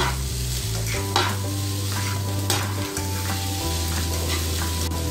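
Food sizzling in a frying pan as it is stirred, with a few scraping strokes of the spatula against the pan.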